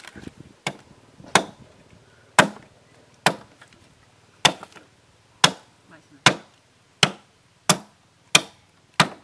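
A hatchet chopping into a green bamboo tube, cutting an opening along its side: about eleven sharp chops, one every second or so, coming a little faster near the end.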